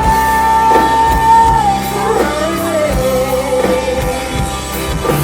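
Live band music with a long held sung note that glides down to a lower held note about two seconds in, over drums, bass and guitar.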